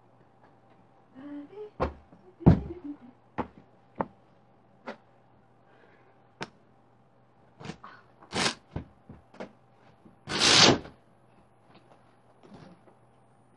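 Scattered thumps and knocks with fabric rustling as sofa pillows and seat cushions are pulled off and set down. There are two longer swishing noises, about eight and ten seconds in, the second the loudest, over a faint steady hum.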